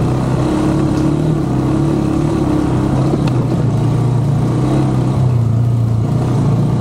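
Motorcycle engine running steadily at low, even revs, loud and close.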